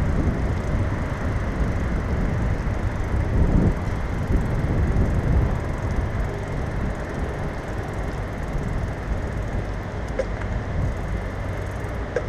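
Steady low rumble of riding a hybrid bicycle: its tyres rolling over a wet paved path and air rushing past the bike-mounted microphone.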